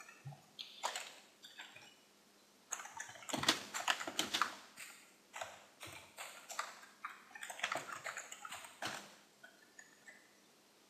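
Typing on a computer keyboard: a run of quick, irregular keystroke clicks, busiest in the middle and thinning out near the end.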